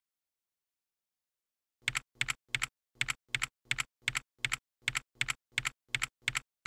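Computer keyboard typing: a run of about fourteen single keystrokes, roughly three a second, each a quick press-and-release double click, starting a little under two seconds in.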